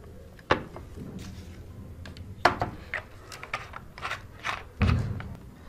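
Handling noises of a plastic bottle and glassware: scattered clicks and light knocks, including the bottle's cap being worked by hand, over a faint low hum.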